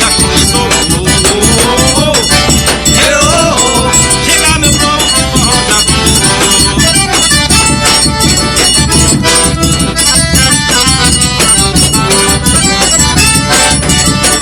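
Instrumental passage of live arrasta-pé forró: accordion playing the melody over a steady, driving beat with a rattling shaker.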